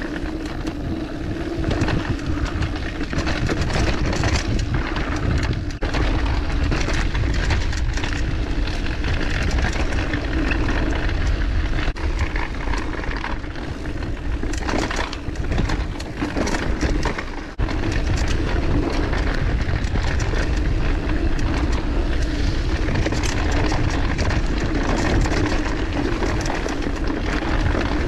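Mountain bike ridden along a dirt singletrack trail: tyres rolling over dirt and roots under a steady low rumble, with frequent rattles and clicks from the bike as it runs over bumps.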